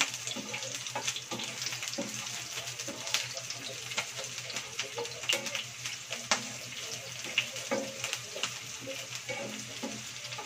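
Onion and garlic sautéing in hot oil in a non-stick frying pan: a steady sizzle with many small crackles and clicks, as a spatula stirs them around the pan.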